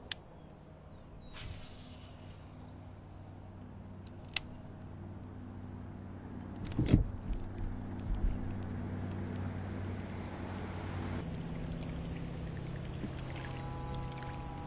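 Pond-side ambience: a steady low hum under a constant high insect drone from the marsh, broken by a few sharp clicks and a louder thump about seven seconds in.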